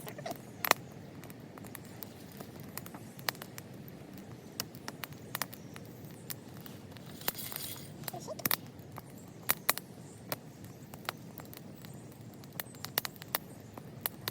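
Wood fire crackling: irregular sharp snaps over a low steady hiss, while a lidded popcorn pan with oiled kernels heats over it before any popping starts.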